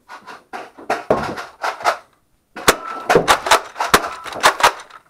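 Rapid runs of sharp knocks and clacks from a Nerf battle, a few a second, with a short break about two seconds in.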